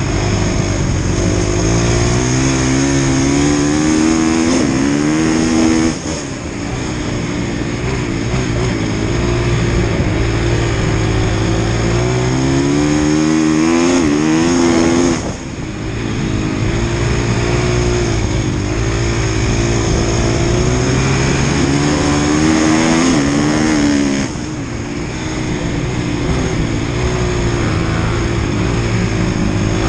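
Husqvarna FX 450's single-cylinder four-stroke engine at race pace, heard from a camera mounted on the bike: the engine note climbs in pitch again and again as it pulls through the gears, then drops off suddenly three times, about six, fifteen and twenty-four seconds in, as the throttle is closed for the turns.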